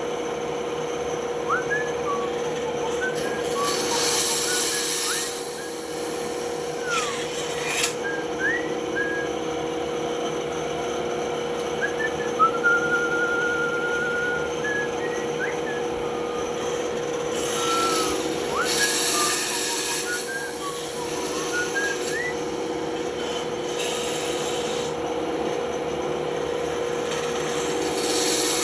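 Band saw running with a steady hum as its blade cuts through wood, the rasping of the cut growing louder in several stretches, with short high squeaks scattered through it.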